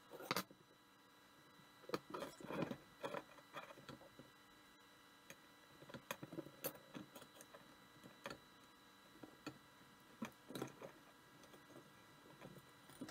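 Small steel parts and square tubing being handled and set down on a wooden workbench: scattered light clicks and knocks of metal on metal and wood, coming in short clusters.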